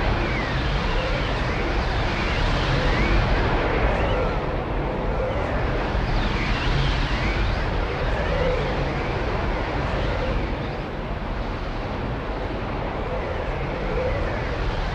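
Magical swirling vortex sound effect: a deep, steady wind rumble with whooshing sweeps that rise and fall in pitch, coming round about every two seconds.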